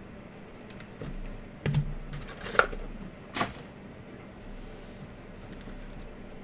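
Foil trading-card pack being handled: a few sharp crinkles and knocks of the wrapper, the pack being laid down and picked up. They come between about one and a half and three and a half seconds in.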